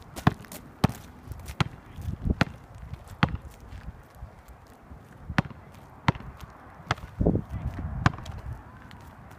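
Basketball bouncing on an asphalt court: about ten sharp, separate bounces at an uneven pace, with a pause of about two seconds in the middle.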